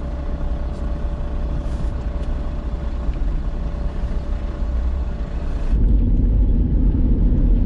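An old camper van's engine and road noise heard from inside the cab while driving: a steady low rumble with a faint steady hum. About six seconds in it changes to a louder, deeper rumble as the van runs along an open road.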